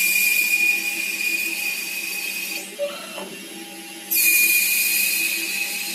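SIEG C6 CNC lathe taking cutting passes: a steady high-pitched whine with hiss as the tool cuts, stopping after about three seconds and starting again about four seconds in, over the lathe's steady motor hum.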